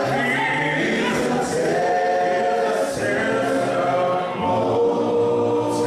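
A group of voices singing a church hymn a cappella in harmony, holding long notes, with brief dips between phrases.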